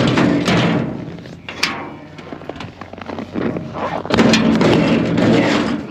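Loud thumping and rattling from a livestock trailer as cattle step out of it onto the ground, in two heavy stretches with sharp knocks, about a second long at the start and again near the end.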